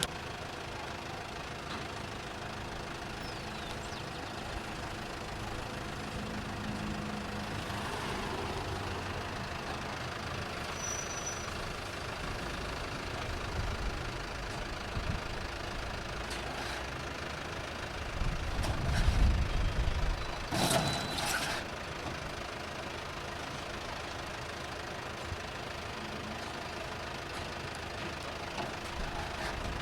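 Semi-urban outdoor soundscape dominated by a steady hum of vehicle engines, with one louder, low-pitched vehicle passing about two-thirds of the way through, followed by a few sharp clacks.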